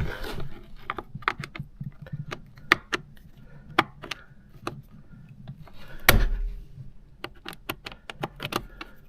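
Irregular small clicks and taps from tools and hands working at the steering-wheel airbag module and its retaining clips, with one louder knock about six seconds in.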